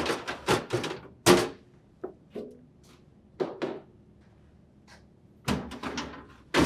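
Plastic crisper drawers of an LG refrigerator being pulled out, clattering and knocking on their rails in short bursts, with one loud clunk about a second in and another run of knocks near the end.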